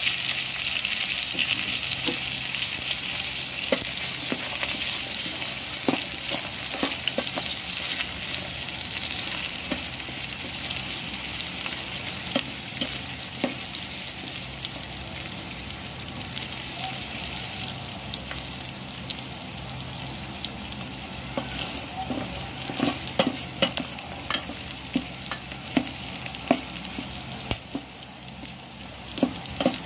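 Pork pieces sizzling in oil with onion and garlic in an aluminium pot, the sizzle slowly dying down. A plastic ladle stirs the pork, its clicks and knocks against the pot coming more often in the last ten seconds or so.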